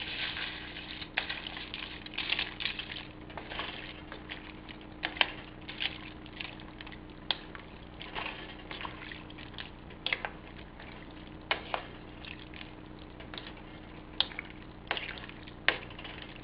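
Wooden spoon stirring flat egg noodles into a pot of chicken soup: wet shuffling and squishing, with scattered sharp clicks and knocks of the spoon against the pot.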